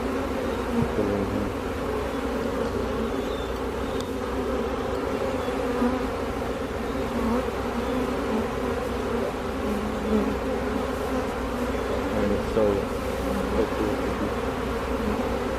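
Honeybee swarm buzzing: a steady, dense hum of thousands of bees in flight, streaming into a hive to join their caged queen.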